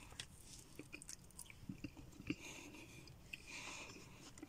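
Faint chewing of a large mouthful of grilled pork rib, with scattered small mouth clicks.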